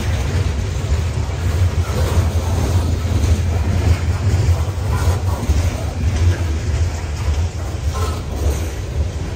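Loaded coal hopper cars of a CSX train rolling past on the rails: a steady low rumble of steel wheels on track.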